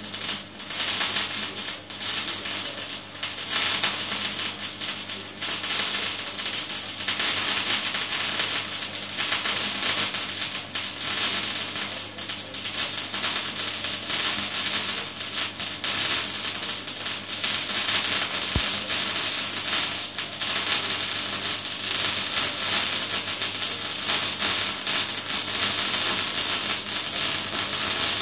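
MAG welding arc in spray-transfer mode with 1 mm solid steel wire, the spray arc set short: a loud, steady hiss with fine crackle. It dips briefly a few times in the first couple of seconds, then runs evenly.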